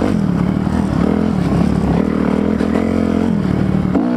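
Kawasaki KLX300R dirt bike's single-cylinder four-stroke engine running under throttle as it is ridden, its pitch rising and falling every second or so as the rider rolls on and off the gas.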